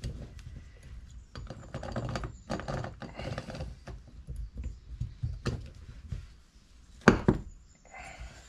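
A T-handle tool working the cylinder bolts of a Stihl MS 200T chainsaw engine as they are cracked loose: scattered small metal clicks and knocks, with one loud knock about seven seconds in.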